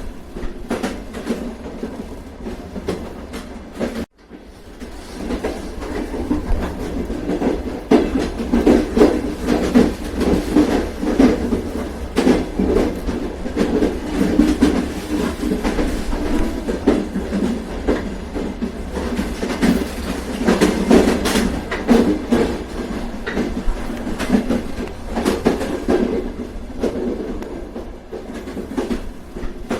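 A moving train: a steady rumble with the wheels clacking over rail joints. It cuts out briefly about four seconds in, then comes back louder and busier.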